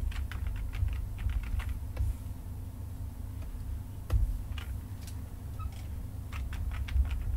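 Computer keyboard and mouse clicking in short, irregular clusters as drawing software is worked, over a low steady hum.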